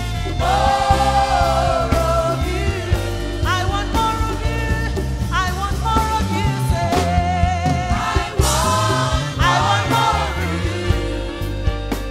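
Live gospel music: a woman singing lead into a microphone, with backing singers, over a band with keyboards and a steady beat.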